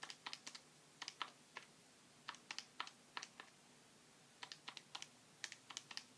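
Key presses clicking in quick runs of several taps with short pauses between them, as numbers are keyed in for a division.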